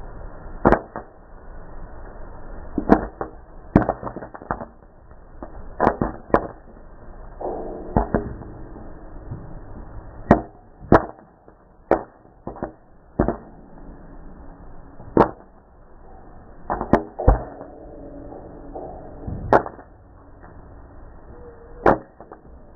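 Popcorn kernels popping in a hot metal pan: sharp single pops at irregular intervals, about one a second, some in quick pairs, over a faint steady hiss.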